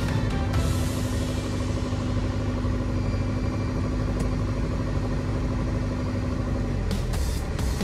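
Single-engine light aircraft's piston engine and propeller running steadily, a continuous drone heard inside the cockpit.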